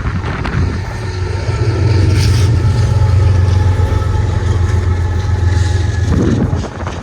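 Union Pacific intermodal freight train passing close by. A diesel locomotive's low engine drone and a steady whine swell up for several seconds, then drop away near the end.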